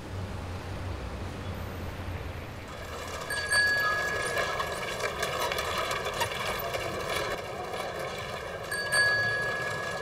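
City street ambience: a low traffic rumble and steady noise, with a short clear ring about three and a half seconds in and again near the end.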